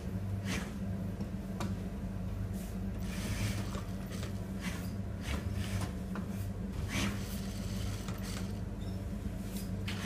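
Juki industrial sewing machine humming in short runs as fabric is stitched, with scattered clicks from the machine and the fabric being handled.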